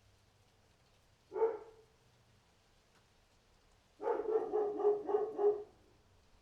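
Dog barking: a single bark, then a couple of seconds later a rapid string of about seven barks.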